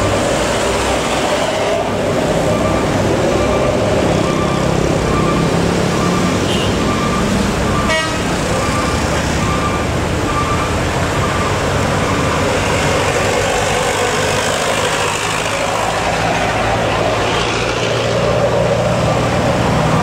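Engines of queued cars and trucks running in slow traffic, with an electronic warning beeper sounding steadily at about two beeps a second. The beeping fades out a little past halfway. A brief sharp buzz comes about 8 seconds in.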